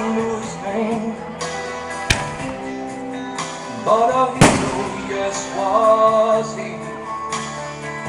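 Country music playing, with no words, broken by two sharp firework bangs: one about two seconds in and a louder one about four and a half seconds in.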